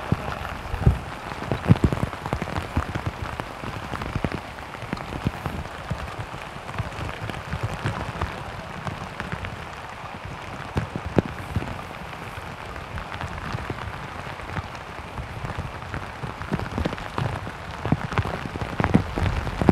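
Heavy rain falling on a pond's surface: a steady hiss with many sharp, close drop strikes.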